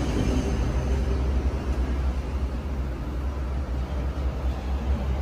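A steady low engine rumble, like an engine idling, with no clear changes.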